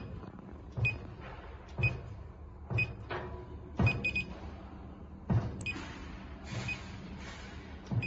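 Electronic keypad lock on a gun safe being keyed in: each button press gives a soft tap and a short high beep, about one a second. About four seconds in, after the sixth press, a quick run of beeps signals that the lock has entered password-setting mode. Then the single-beep presses resume at a slightly slower pace.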